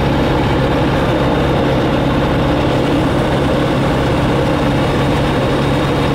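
Flight Design CTSW microlight's Rotax 912 four-cylinder engine and propeller running steadily, heard from inside the cockpit, with no change in engine speed.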